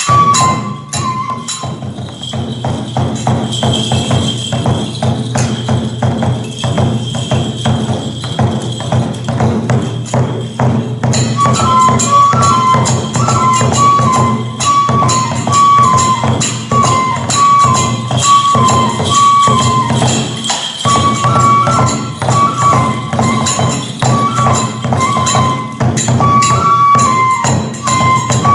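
Kagura festival music: dense, rapid strokes of drum and small jingling hand cymbals over a steady low drone. A high flute note is held at first, and about a third of the way in a flute melody starts, repeating a short phrase.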